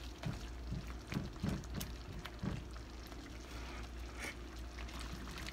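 A silicone spoon stirring thick creamy curry sauce in a nonstick frying pan: a run of soft wet strokes in the first two seconds or so. After that the sauce simmers with a few small bubble pops, over a steady low hum.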